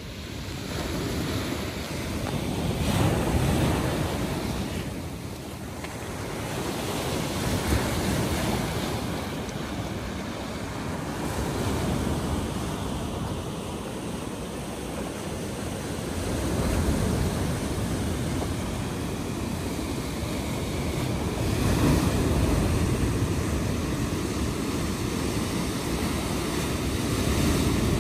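Rough sea surf breaking on the shore, a steady rush that swells and ebbs every few seconds, with wind blowing across the microphone.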